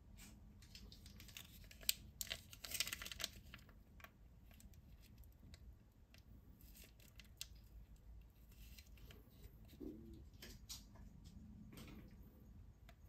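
Small plastic topping packet from a Popin' Cookin' candy kit being handled. There is a brief louder tear about two to three seconds in, then soft crinkling and light clicks as it is squeezed.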